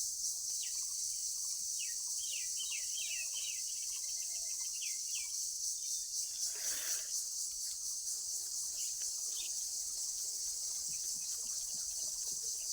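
Steady high-pitched drone of an insect chorus, with a bird chirping repeatedly over roughly the first five seconds and a brief swish about seven seconds in.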